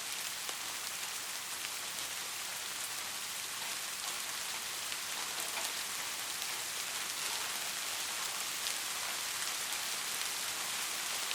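Steady rain falling, an even hiss dotted with scattered drop ticks.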